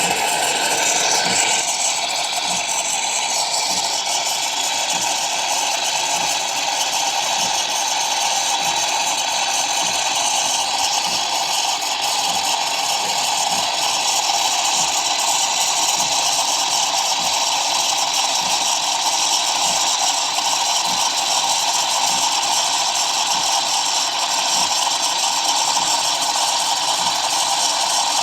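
Mr. Coffee Cafe Barista espresso machine running: a continuous steady hiss with faint regular ticking underneath.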